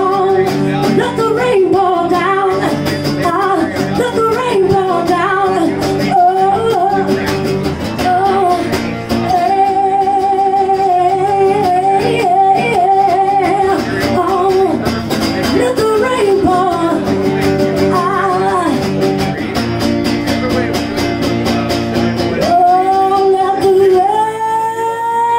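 A woman singing through a microphone with a strummed acoustic guitar. A long held note swells near the end.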